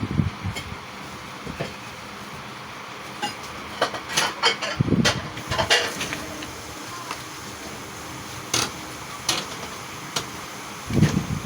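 Kitchen utensils and dishes clinking and knocking now and then, with a few dull thuds, over a steady background noise.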